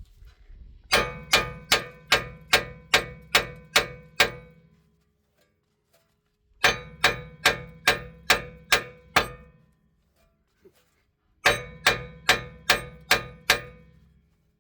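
Rapid, evenly spaced metallic clangs with a ringing tone, about two or three a second, coming in three runs of six to nine blows separated by short pauses.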